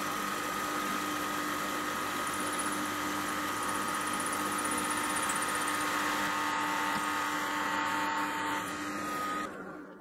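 Benchtop drill press running at a steady pitch as a 5 mm twist drill, guided through a drill bushing, bores through a 10 mm round bar. Near the end the motor is switched off and the sound fades as the spindle runs down.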